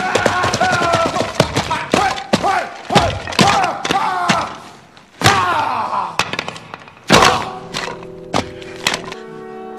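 A run of sharp thumps and thuds, many of them followed by short cries that fall in pitch. A few steady held notes come in near the end.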